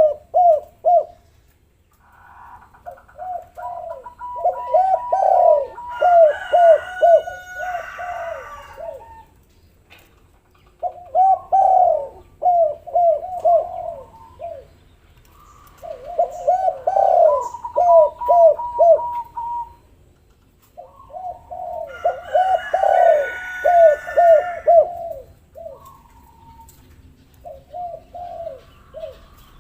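Doves cooing in repeated bouts every few seconds, each bout a quick run of low falling coos, with small birds chirping over some of the bouts.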